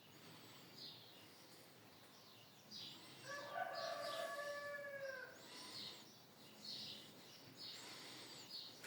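A rooster crows once, a long held call lasting about two seconds near the middle, with small birds chirping repeatedly around it.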